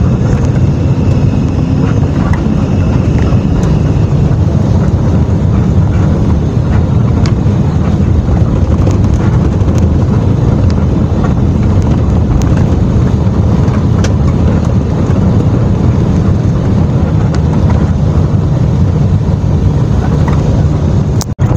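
Intercity bus under way at speed, heard from on board: a loud, steady rumble of engine and road noise, with wind buffeting the microphone.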